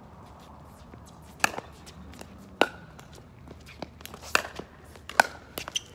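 Pickleball rally: a plastic pickleball struck by paddles and bouncing on the hard court, giving sharp pocks about a second apart, some with a short ringing tail. Fainter clicks fall between the loud ones.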